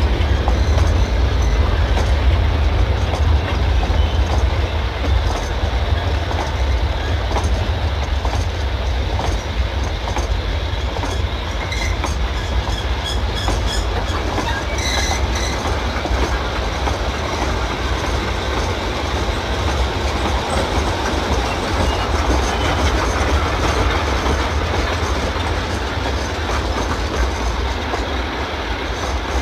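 British Rail diesel locomotive with a Sulzer engine at work on a train: a steady heavy rumble with rail noise. A brief faint high squeal comes about halfway, and the sound eases slightly toward the end.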